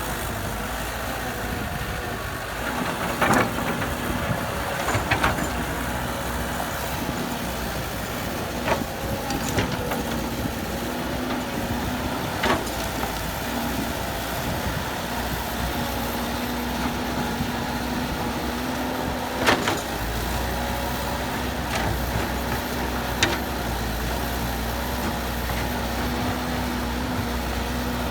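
Heavy construction machinery engine running steadily, with a scattering of sharp knocks and clanks; the low rumble gets heavier about two-thirds of the way through.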